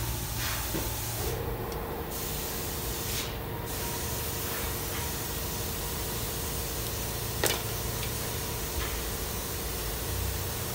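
Steady hiss of background noise with a faint steady hum, and one sharp click about seven and a half seconds in.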